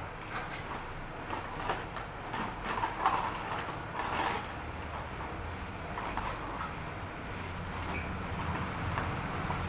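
Light clicks, knocks and scrapes of hands handling server parts, over a steady low hum.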